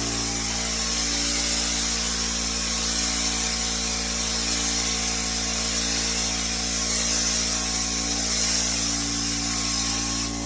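Drywall texture sprayer blowing orange peel texture: a steady, strong air hiss over a constant low hum, with the hiss cutting off right at the end.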